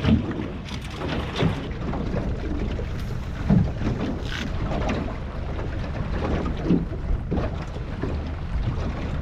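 Wind buffeting the microphone over water lapping around a small boat, with a few scattered knocks.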